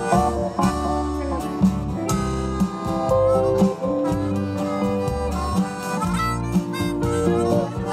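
Live band playing an instrumental passage: a harmonica carries held and sliding lead notes over strummed acoustic guitar and a moving bass line.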